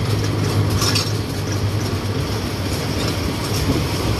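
Songthaew pickup-truck shared taxi on the move, heard from its open rear passenger bed: a steady low engine hum under road and wind noise, with a brief rattle about a second in.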